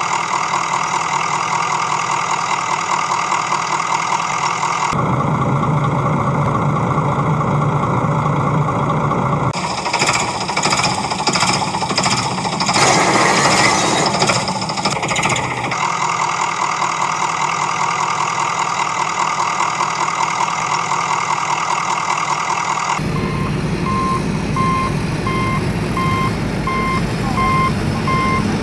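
Heavy vehicle engine running, its character changing abruptly every few seconds. In the last few seconds a reversing alarm beeps at a steady pace over the engine.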